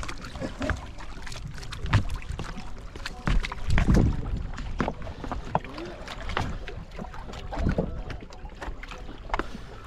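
A wooden boat bumps against a rocky stone bank while people step off it onto loose rocks. Irregular clicks and knocks of feet and stones are heard, with heavier thumps about two and four seconds in.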